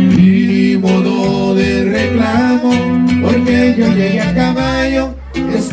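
Live norteño band playing an instrumental break: button accordion holding the melody over a strummed acoustic guitar and a plucked upright bass. The music dips briefly about five seconds in.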